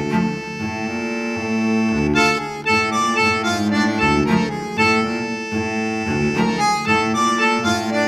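Instrumental background music comes in suddenly: a sustained melody over a pulsing bass line.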